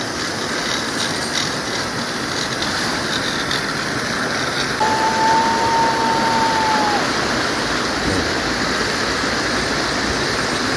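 Steady rushing of a shallow rocky stream. About halfway through, a single high steady tone sounds for about two seconds and then stops.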